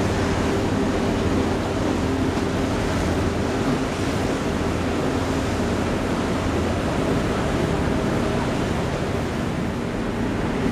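Steady low ship engine hum under the rush of harbour water and wind noise on the microphone.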